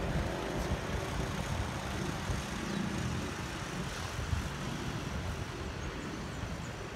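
Steady city traffic noise, a low, even rumble with no single event standing out.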